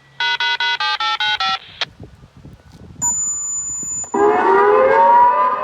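ATI HPSS-32 electronic siren: a quick run of about seven short chime tones, then a steady tone about three seconds in. A little after four seconds its prerecorded Federal 2T22 blast starts, loud and rising in pitch as it winds up.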